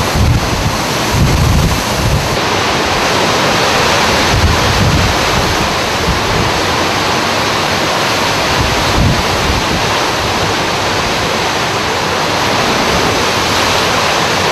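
Hurricane-force wind and storm-surge water making a loud, steady roar, with gusts buffeting the microphone now and then.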